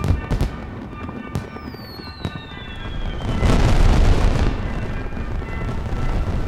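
Fireworks going off: a few sharp bangs and falling whistles, then a loud crackling burst about three and a half seconds in that slowly dies away. Music with sustained notes plays underneath.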